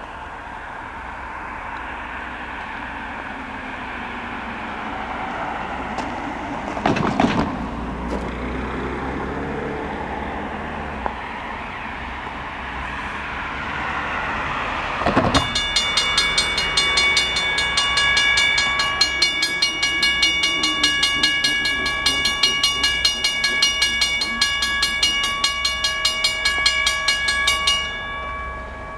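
Railroad grade-crossing bell starts ringing about halfway through with a fast, even run of strikes, and stops shortly before the end. Before it starts, the sound of the distant approaching diesel train slowly grows louder.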